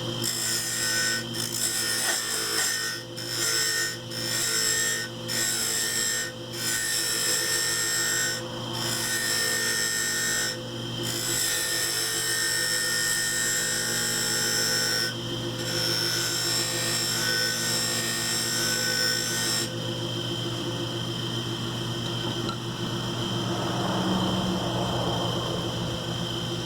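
Wood lathe running with a turning tool cutting a spinning piece of laminated wood, a steady motor hum under a scraping hiss. The cutting sound breaks off for a moment several times in the first half as the tool comes off the wood, then runs on more evenly.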